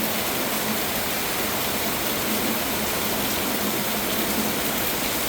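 Heavy rain pouring down, a steady, even rush of noise.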